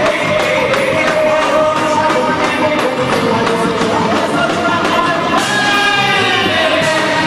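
Festa junina band music with singing over a steady beat, loud and continuous.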